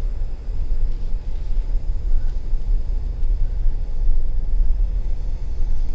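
Steady low wind rumble on the microphone from riding along on an e-bike.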